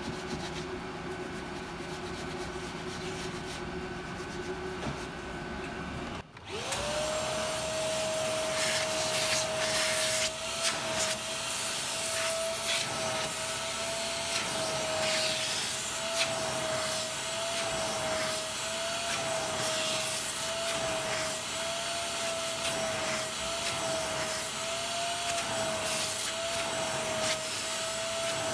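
A steady hum breaks off about six seconds in, and a vacuum cleaner motor starts up. It then runs with a steady whine that wobbles slightly in pitch, under short scraping and clicking noises.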